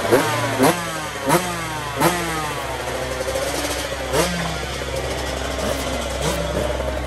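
KTM 125 SX two-stroke motocross engine being blipped at the throttle, several quick revs in the first two seconds and one more about four seconds in, each dropping straight back to a smoky idle, the way a two-stroke is warmed up. A second dirt bike idles alongside.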